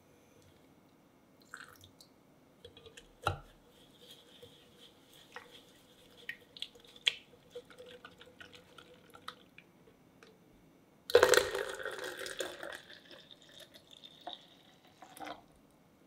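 Wire whisk ticking and clinking against a glass jug as egg yolks are beaten with sugar. About eleven seconds in, heated milk and cream are poured into the jug with a splashing rush that tails off over a couple of seconds, followed by a few more whisk clinks.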